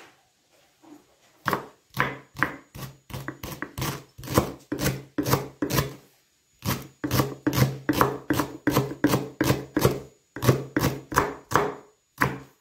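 Kitchen knife slicing a leek into rings on a wooden cutting board: a steady run of crisp knife strikes on the board, two to three a second, with a brief pause about six seconds in.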